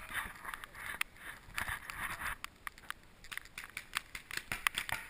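Paintball markers firing: scattered sharp pops, some in quick runs of several shots, with rustling hiss in between.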